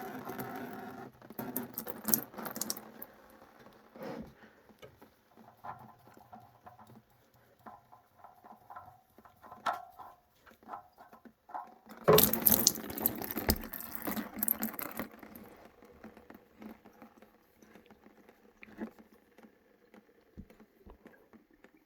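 Engine oil draining and dripping from a removed oil filter, with scattered clicks from handling. A louder burst of noise comes about twelve seconds in and lasts about three seconds.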